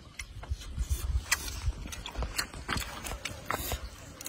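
Eating noises: irregular small clicks and smacks of chewing and of fingers picking apart charred grilled fish.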